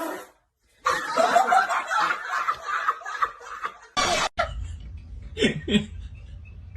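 A person laughing hard for about three seconds. It cuts off abruptly, giving way to a steady low hum and two short vocal sounds, each falling in pitch.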